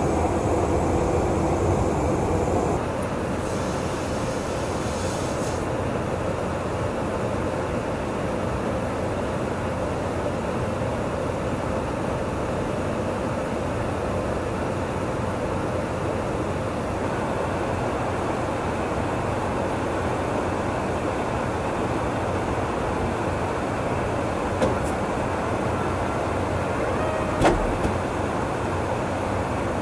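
Steady in-flight noise of a KC-135 Stratotanker: a dense rushing drone with a faint steady hum. Two short clicks come near the end.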